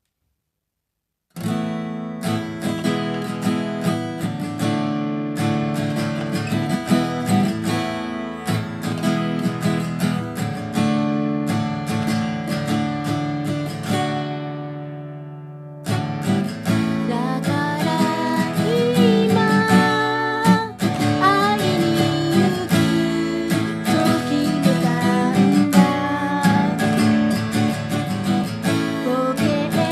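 Acoustic guitar played with a pick, starting a second and a half in after silence; around the middle a chord is left to ring and fade, then a woman's voice comes in singing over the guitar.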